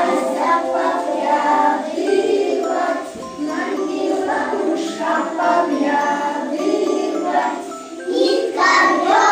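Young children singing a song together to musical accompaniment.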